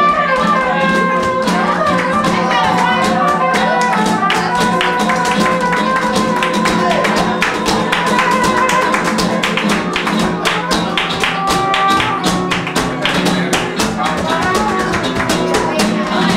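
Live flamenco music: nylon-string guitar strummed and plucked, with rapid rhythmic hand-clapping (palmas) and a voice singing long, wavering held notes.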